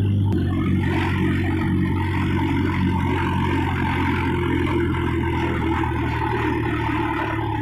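Farm tractor's diesel engine running steadily while the tractor drives along, a constant low drone heard from the driver's seat.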